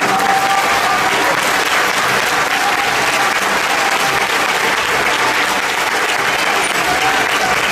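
Large stadium crowd applauding steadily, a dense even clatter of many hands.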